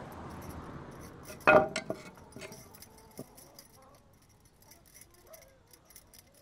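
Metal kitchen utensils clinking: one clear clink with a short ring about one and a half seconds in, a second lighter one just after, then a few faint taps.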